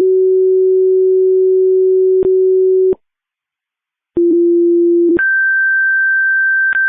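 Fire dispatch radio alert tones paging a fire station. A long steady low tone stops about three seconds in, then after a short pause comes a brief low tone that steps up to a higher steady tone, with faint radio clicks between them.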